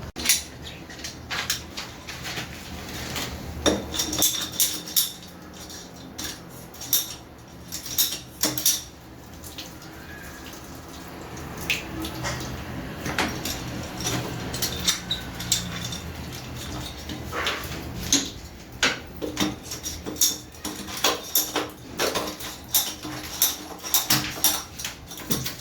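Irregular clinks and knocks of hard, partly metallic objects being handled and set down, in bursts with short pauses between, as during hands-on renovation work.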